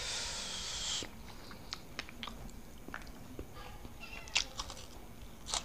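Quiet eating by hand from a banana leaf: light clicks, taps and chewing noises scattered through, the sharpest about four seconds in. A short airy hiss lasting about a second comes first.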